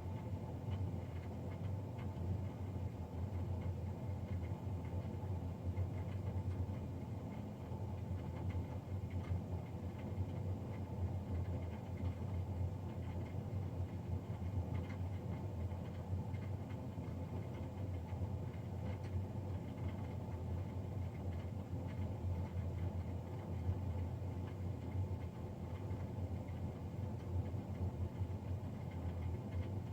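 Combustion blower fan of a Navien NCB-240 combi boiler running with a loud, steady fan noise: a deep hum with fainter steady higher tones over it, unchanging throughout.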